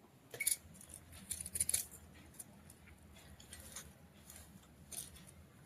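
Faint kitchen handling noises: a few light, irregular clicks and scrapes of vegetables and utensils being moved about on a counter.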